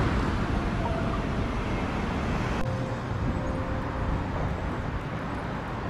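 Steady outdoor street ambience with a continuous low rumble.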